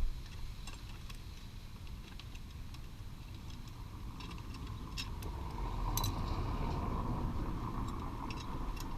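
Scattered light metallic clinks of steel bolts and hand tools being handled while the exhaust bracket bolts come out, over a steady low rumble. A broader hum builds from about halfway through.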